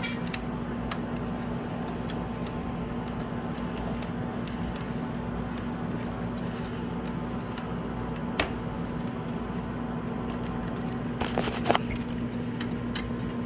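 Scattered light clicks and handling noises of power supply cables being fitted to a graphics card, over a steady background hum. A sharper click comes about eight seconds in, and a quick cluster of clicks a little after eleven seconds.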